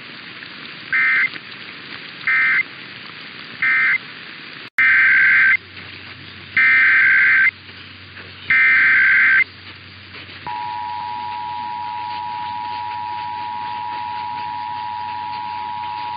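Emergency Alert System data tones over radio static: three short SAME end-of-message bursts, then, after a brief dropout, three longer SAME header bursts. About ten seconds in, the steady two-tone EAS attention signal begins and holds.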